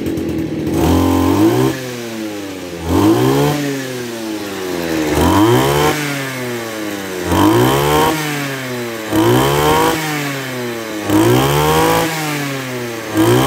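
Kawasaki TJ27 27cc two-stroke brush cutter engine revved up and dropped back to idle about seven times, a blip roughly every two seconds.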